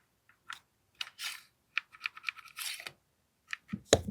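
AAP-01 gas blowback airsoft pistol being cycled and test-fired: a run of sharp metallic clicks with two short hissing puffs, and a heavier crack near the end.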